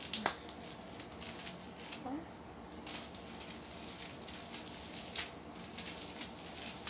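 Plastic wrapping crinkling and rustling as it is peeled off a small plastic bottle by hand, with a few sharper crackles: about a quarter second in, near the middle and about five seconds in.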